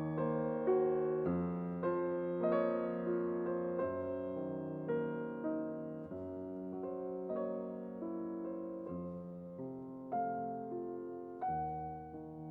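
Background music: a gentle piano melody, notes struck and left to fade.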